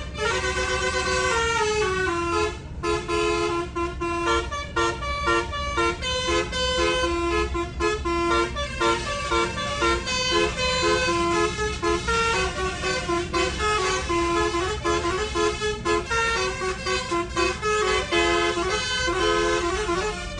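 Bus telolet musical air horn playing a fast tune of short stepped notes, going on throughout, over a steady low rumble.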